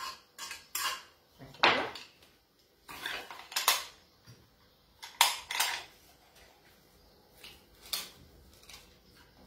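Metal potato ricer clinking and clanking irregularly as boiled potatoes are pressed through it, with sharp metal knocks scattered through, the loudest about two and four seconds in.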